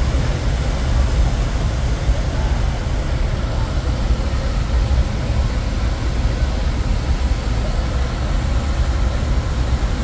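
Waterfall: a steady rush of falling water, with a deep rumble underneath.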